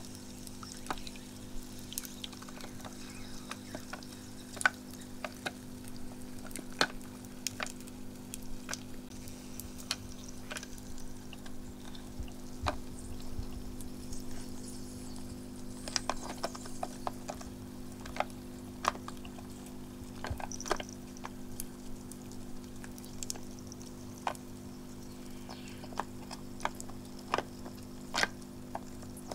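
Electric cat water fountain's pump humming steadily with water trickling, while ice cubes in the bowl clink and tap irregularly as a kitten noses and paws at them.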